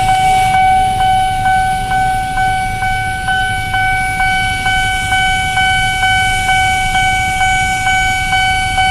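Railway level-crossing warning alarm ringing: a steady electronic tone pulsed by regular strikes about twice a second, the signal that the crossing is closed for an approaching train. Low traffic rumble underneath.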